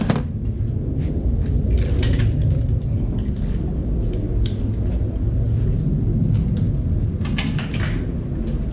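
Steady low rumble with a few light clicks and knocks of metal parts and tools being handled.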